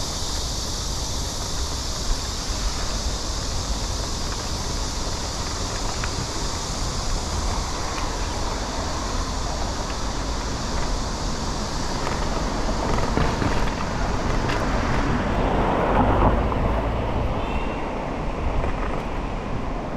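Street traffic noise heard from a moving bicycle, with wind rumbling on the microphone. A steady high hiss stops about three quarters of the way through, and a louder vehicle passes near the end.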